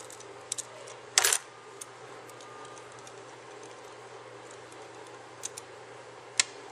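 Small metal clicks and ticks from a Lynx 100C spray gun being worked on by hand while its trigger is taken off, with one brief louder rasping clatter about a second in. A low steady hum runs underneath.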